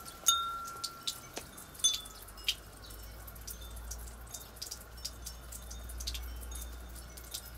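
Japanese glass wind chimes (fūrin) ringing as their clappers hit the glass bells. A clear ringing strike comes just after the start and rings on for about a second. Two more strikes follow around two and two and a half seconds in, then light, scattered tinkles and clinks, with a low rumble underneath in the middle.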